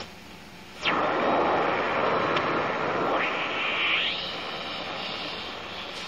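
Shortwave radio receiver being tuned between stations, giving static and hiss with no programme audible. A quick tuning sweep comes about a second in and brings strong static, and a rising whistle follows about three to four seconds in. The static then drops to a softer hiss.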